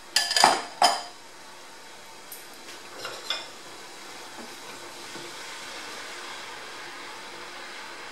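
A few sharp clinks of metal against a small saucepan in the first second, then a few lighter knocks. After that comes a steady faint hiss from the pan of hot sugar syrup with chocolate pieces in it.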